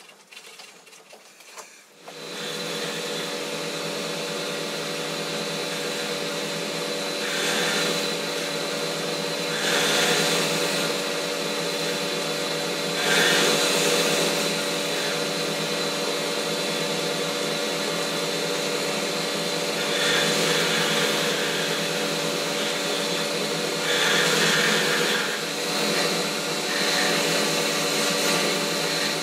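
Boxford lathe running and turning a ball end on a workpiece with a radius-turning attachment: a steady motor and gear hum with the hiss of the tool cutting, which swells louder several times as the cut deepens. It starts abruptly about two seconds in after a quiet start.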